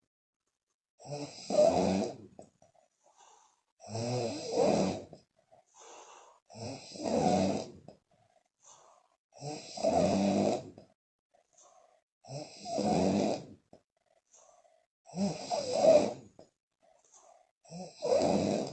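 A woman snoring loudly: seven rasping snores about a second each, coming evenly every two to three seconds, with soft puffs of the lips between them.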